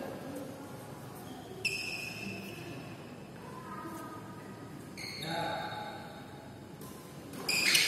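Badminton rally in a large hall: sharp racket strikes on the shuttlecock and brief high sneaker squeaks on the court floor, over faint voices. It gets louder and noisier near the end.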